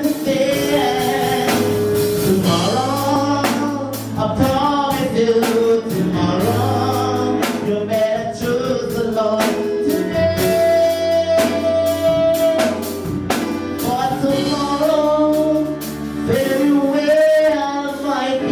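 A man singing a gospel song into a microphone over an instrumental accompaniment with bass and a beat, his voice sliding between notes with vibrato and holding one long note around the middle.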